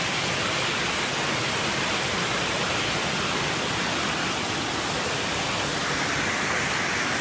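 Heavy rain and rushing floodwater: a steady, even hiss that does not let up.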